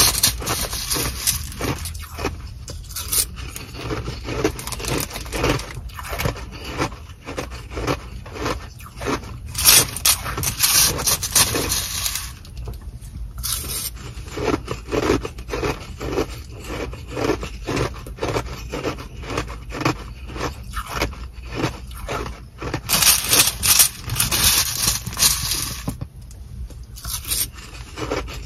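Sonic nugget ice being chewed close to the microphone, a steady run of rapid crunches. A plastic spoon scrapes through the ice in a plastic bag, with a few louder scooping and crinkling bursts.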